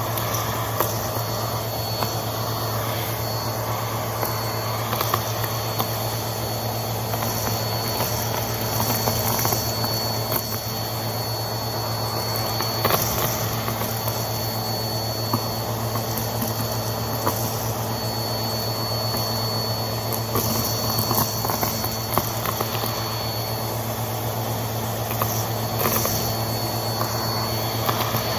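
Vacuum cleaner running steadily with a constant motor hum and a thin high whine, crackling and clicking as it sucks up crunchy debris.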